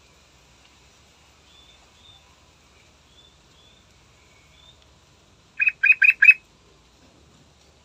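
Yellow-vented bulbul calling: a quick run of four loud, clear notes about two-thirds of the way through, after a few faint, thin high peeps.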